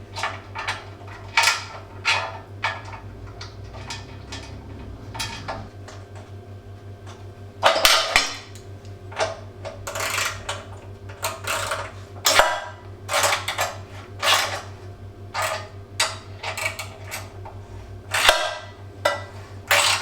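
Socket ratchet working a 13 mm bolt into the engine's sheet-metal fan tinware: repeated bursts of metallic clicking as the ratchet is swung back and forth, with light clinks of metal. A steady low hum runs underneath.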